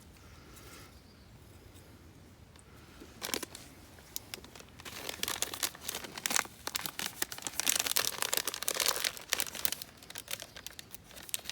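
Dry crinkling and crunching rustles, dense and irregular from about five seconds in, after a quiet start with a single click.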